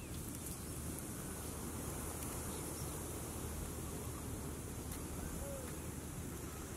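Steady outdoor ambience: a high-pitched insect drone over a low rumble of wind, with no distinct events.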